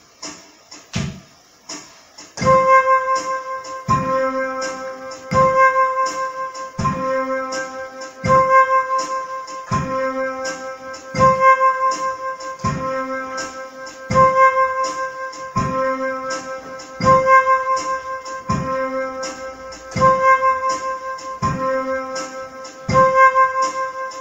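Background music: a keyboard, electric-piano-like, plays a looping figure with a low note about every second and a half. The full figure comes in about two and a half seconds in, after a sparser opening.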